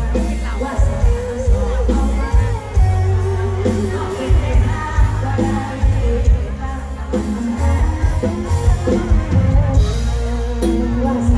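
Live amplified band music with a woman singing an Isan luk thung song, her voice wavering with vibrato over a heavy, steady bass beat.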